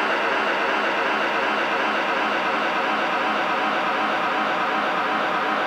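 Pink noise test signal from the Spatial Audio Calibration Toolkit's Object Panning test, played through the home-theater speakers at a steady level. In this test the noise is panned around the room to check that the sound sits where the on-screen ball shows it.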